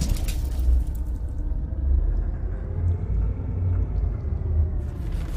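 Deep, sustained rumble of a cinematic logo-intro sound effect. Near the end a bright rushing hiss joins it.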